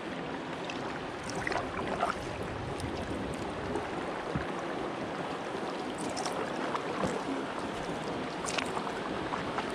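Kayak paddling on a river: paddle blades dipping and splashing, with several brief sharper splashes over a steady wash of moving water.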